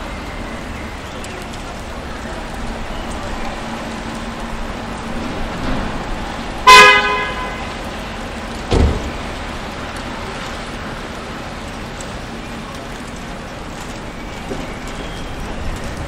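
City street traffic rumbling steadily, with one short car horn honk about seven seconds in, the loudest sound, and a low thump about two seconds after it.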